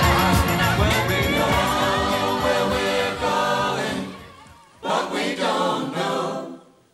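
Background music with singing that fades out about four seconds in, followed by a different passage of choral singing.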